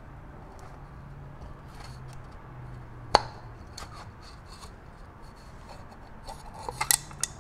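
A thin metal pick scraping and clicking against an oil filter housing cap while prying the old O-ring out of its groove: one sharp tick about three seconds in and a quick cluster of clicks near the end.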